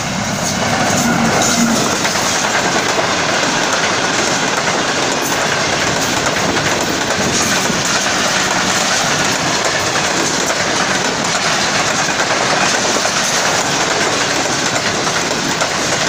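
Express passenger train passing at speed close by: the sound swells as the diesel locomotive draws level in the first second or two, then holds as a steady, loud rush of coaches, wheels clattering over the rail joints.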